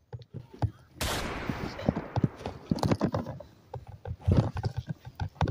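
Rustling leaves and irregular knocks and footfalls as people push through bushes and long grass, with a sudden burst of noise about a second in that fades away.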